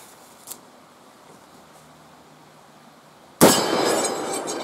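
A single shot from a Dan Wesson Supermag revolver firing .357 Remington Maximum, about three and a half seconds in. The sharp report rings out and fades over more than a second.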